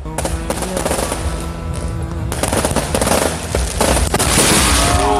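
Aerial fireworks going off in rapid, dense crackling bangs that grow thicker and louder from about two seconds in. Background music plays underneath.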